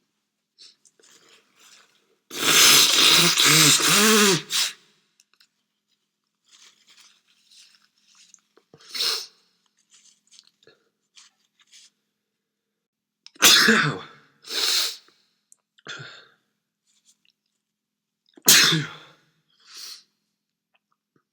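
A man sneezing repeatedly, with faint sniffs and breaths in between. A long, loud fit comes a couple of seconds in, and sharp sneezes follow later, two close together and then another near the end.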